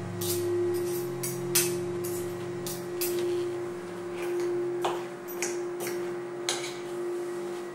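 A spoon and fork clinking repeatedly against ceramic plates and bowls while eating, over soft background music of held notes.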